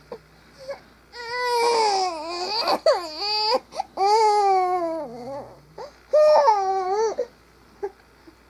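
Infant crying: three long wails, the first two about two seconds each and a shorter one near the end, with brief pauses between.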